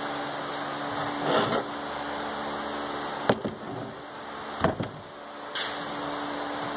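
A few light knocks and taps as thin wooden trim strips are set down and pressed onto a cabinet door face, over a steady background hum.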